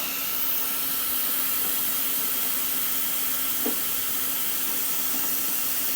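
Plasma cutter cutting through rusted sheet steel: a steady, even hiss with a faint steady hum under it. A small knock comes about two-thirds of the way in.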